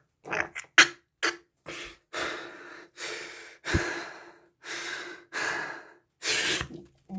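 A person breathing hard in a run of sharp, forceful breaths and gasps, short at first and then longer, as they strain to crush a raw egg in one hand.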